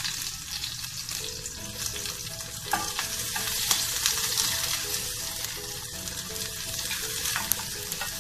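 Sliced onions and curry leaves sizzling in hot coconut oil in a metal saucepan, stirred with a wooden spoon that knocks against the pan now and then.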